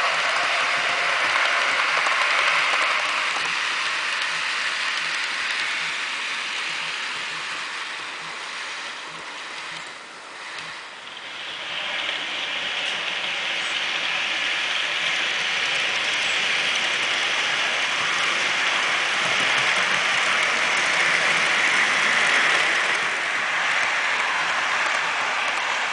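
HO-scale model freight train running along the track: a steady rolling rattle of its wheels on the rails and the mechanism of the model. It fades to its quietest about ten seconds in, then builds again as the train comes close.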